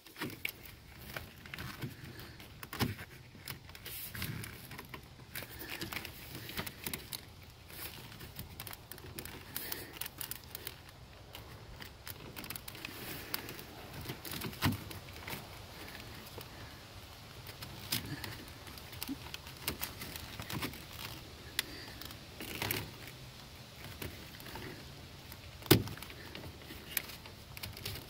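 Hands handling a plastic wiring-harness connector and its wires, which are being slid and clipped back into place: irregular small clicks, taps and rustles, the sharpest knock a little before the end.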